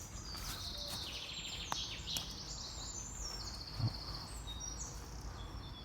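Several songbirds singing, with repeated high trilled phrases overlapping one another, over a steady low background rumble.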